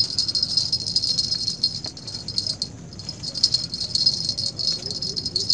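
Insects chirring: a steady high-pitched rattling buzz that dips briefly about two to three seconds in.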